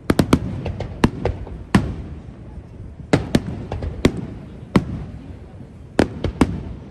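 Fireworks display: about a dozen sharp shell bursts crackle and bang at irregular intervals, some in quick succession, over a low rolling rumble.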